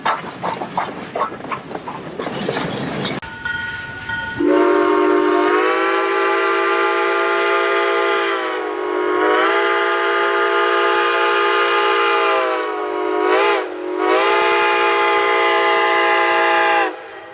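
Steam locomotive working with rhythmic exhaust chuffs for the first few seconds. Then, after a cut, its whistle blows one long chord for most of the rest, sagging in pitch twice and cutting off near the end.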